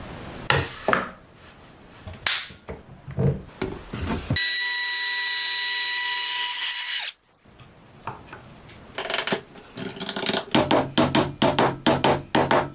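Woodworking tool sounds: scattered knocks on wood, then a steady high power-tool whine that stops abruptly after about three seconds, then a quick run of rasping strokes, about six a second, near the end.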